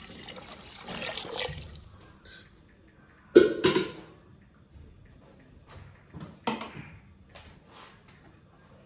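Water being poured from a jug into a large pot of chicken curry, splashing into the liquid and tailing off after about two seconds; this is the water for the basmati rice of a chicken biryani. A little over three seconds in come two sharp knocks, the loudest sounds, with a few fainter clicks later.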